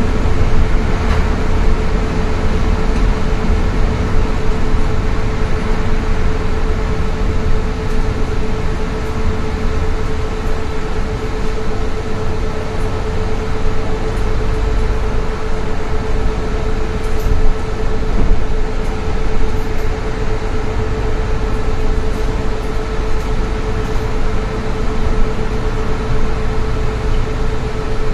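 Ride noise inside a moving train: a steady low rumble with a constant hum held at one pitch.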